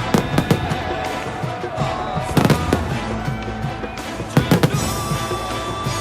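Fireworks going off in clusters of sharp bangs, near the start, midway and again past two-thirds, over background music with held notes.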